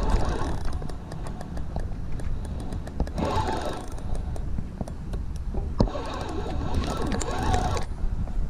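Spinning reel being cranked in three short bursts, its gears whirring as line is wound in against a fish on the line, with wind noise on the microphone.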